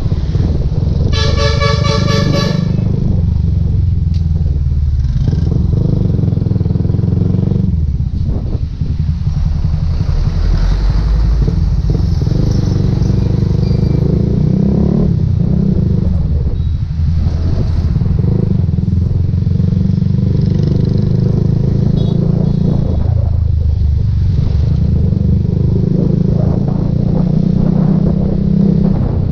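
Motorcycle riding on the road: steady engine and road rumble with wind on the microphone. A vehicle horn honks briefly about a second in.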